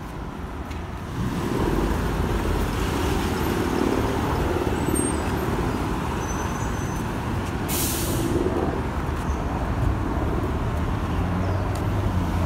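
City bus engine rumbling steadily, with a short air-brake hiss about eight seconds in.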